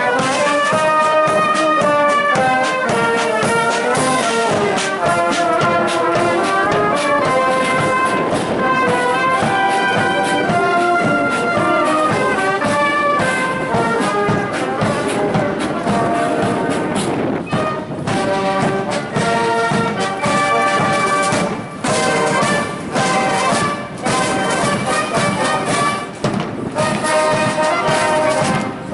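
Military band playing a march, brass leading over a steady drum beat.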